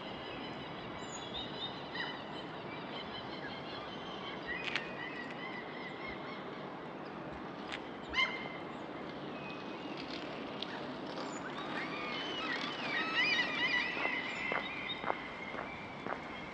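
Several small birds chirping and singing over a steady background hiss, the song busiest in the last third. Footsteps on pavement tick faintly near the end.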